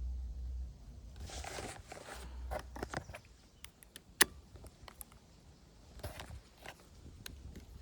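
Handling noises: rustling and scattered clicks, with one sharp click about four seconds in, over a low rumble of wind on the microphone.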